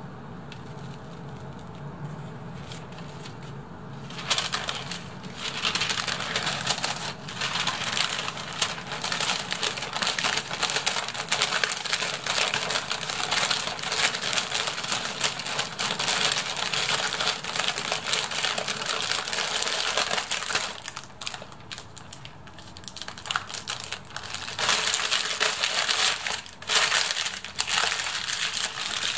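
Parchment paper crinkling and rustling as it is folded and pressed tightly around a sandwich. It starts about four seconds in after a low room hum, eases off briefly about two-thirds of the way through, then starts again.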